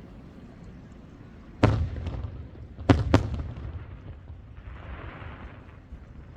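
Aerial fireworks shells bursting: one bang about a second and a half in, then two more close together about a second later, each trailing off in a rumbling echo. A short hiss follows about a second and a half after the last bang.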